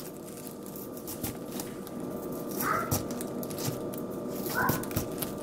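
Kitchen knife cutting around the core of a raw cabbage head on a wooden board: a run of crisp crunches and crackles as the blade goes through the leaves. Two brief, higher squeaks come about two and a half and four and a half seconds in.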